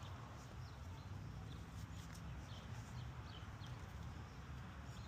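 Small birds chirping: short high chirps again and again over a low steady rumble.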